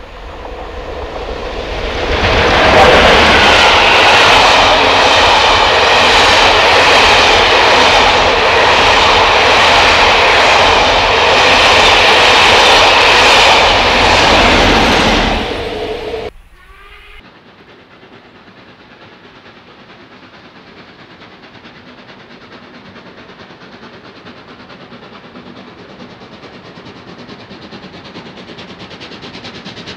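Steam locomotive hauling a train past at speed: a loud rush of exhaust and running gear that builds over the first two seconds and holds. It cuts off suddenly about sixteen seconds in, followed by a much quieter steady rumble of another train that slowly grows.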